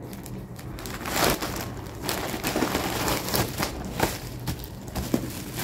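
Plastic packaging crinkling and rustling in irregular bursts as it is pulled from a plastic courier bag and handled, loudest about a second in.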